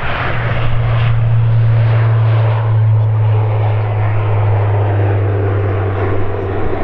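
Jet airliner engines running close by: a steady low drone under a broad rushing noise, the drone dropping slightly in pitch after about five seconds.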